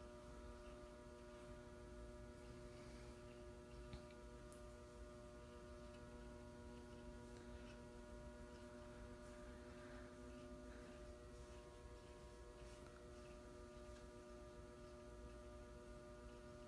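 Faint, steady electric hum of a FASCO ceiling fan's motor, several steady tones together; one of the lower tones fades out about eleven seconds in.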